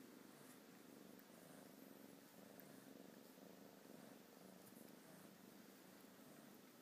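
An animal's faint wheezing breath, swelling and fading in slow, regular in-and-out cycles.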